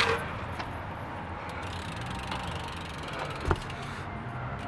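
BMX bike's freewheel rear hub clicking with a rapid, even ratchet ticking as the wheel coasts, between two sharp knocks: one at the start and one about three and a half seconds in.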